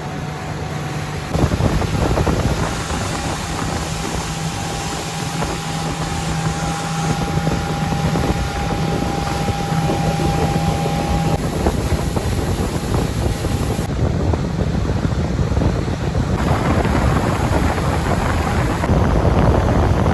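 Motorboat engine running with heavy wind noise on the microphone. A steady engine hum holds for about the first eleven seconds, then only the wind and water noise remain.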